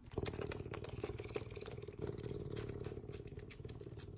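Cat sucking milk from a baby bottle's nipple: a rapid run of wet clicks and smacks.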